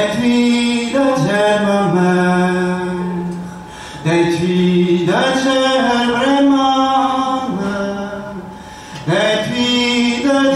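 A young man singing solo and unaccompanied, in three long, held phrases, each ending in a short breath pause before the next begins about four and nine seconds in.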